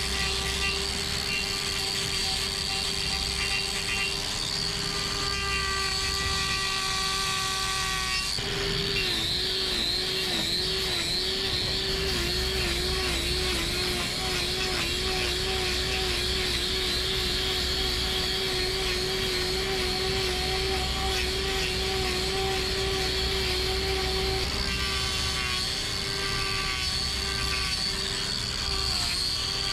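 Angle grinder trimming a cow's hoof, its motor running with a steady high hum. From about eight seconds in until near the end its pitch wavers up and down as the disc is worked against the hoof horn, then it steadies again.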